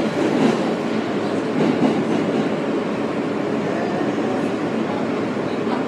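NYC subway R160 car running at speed, heard from inside the car: a steady noise of wheels on rail and car body rattle.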